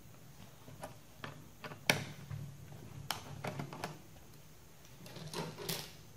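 Sharp plastic clicks as a plastic pry tool works the keyboard's top edge and retaining clips on a Toshiba laptop. There are several separate clicks, the loudest about two seconds in, and a short rustle of handling near the end.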